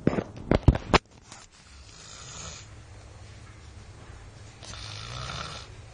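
A person snoring loudly, with two long rasping snores about three seconds apart over a low steady rumble. A few sharp knocks sound in the first second.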